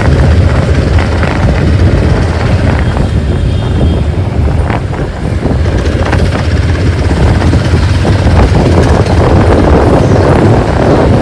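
Motorcycle on the move: its engine running, mixed with heavy wind rush on the microphone.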